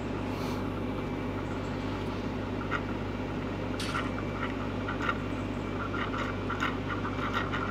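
AdBlue running from a pump nozzle into a Volvo truck's AdBlue tank over a steady low hum, with short gurgles that start about three seconds in and come more often toward the end as the tank nears full.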